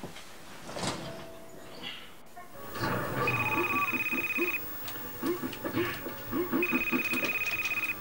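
A telephone ringing twice, each ring a little over a second long, over electronic video-game music and sound effects playing from a television.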